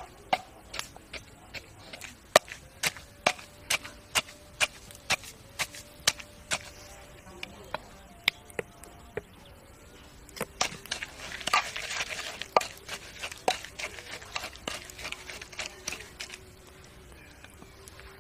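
Wooden pestle pounding chillies in a clay mortar, sharp knocks about two a second. Around the middle a hiss as oyster sauce is poured in, with the pounding going on through it.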